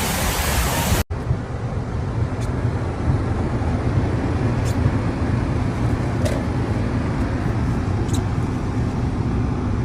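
A rushing noise for the first second, cut off abruptly, then a steady low rumble of motor vehicle and road noise with a few faint ticks.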